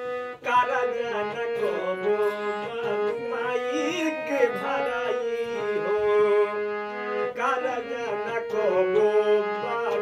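Harmonium playing held reed tones and a melody, with a man singing a Bhojpuri song over it.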